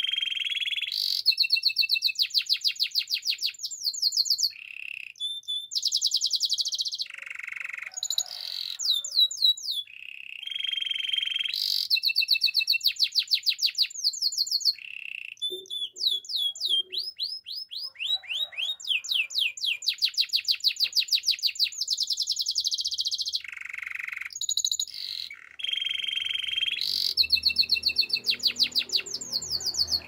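Domestic canary singing a long song of fast trills and rolls, phrase after phrase with brief pauses between them.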